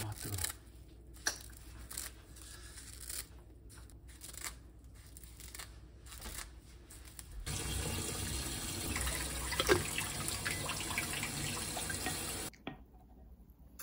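Kitchen scissors snipping sheets of dried roasted seaweed (gim), with crisp snips and crackling. The crackling grows denser about halfway through and cuts off suddenly near the end.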